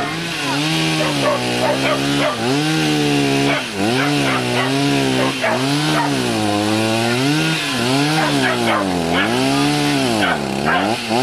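Chainsaw running at high revs, its pitch dropping and recovering about once a second as the chain bites into brush and branches and frees again.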